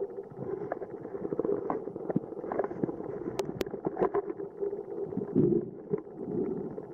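Muffled underwater sound picked up by a camera in a waterproof housing: an irregular low rumble with scattered clicks and crackles, and two sharp clicks about three and a half seconds in.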